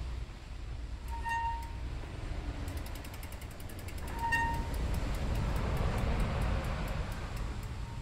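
A bicycle wheel spinning through a Meroca M4 four-piston hydraulic disc brake caliper: a light rhythmic ticking from the rotor that slows as the wheel spins down, and two short metallic rings, the first about a second in. It is a noise from the rotor and pads even though the rotor is straight and no pad contact shows.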